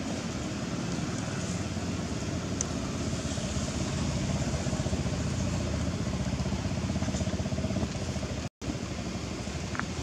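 A steady, low, engine-like drone, like a motor vehicle running nearby, with faint outdoor background noise. It cuts out for an instant about eight and a half seconds in.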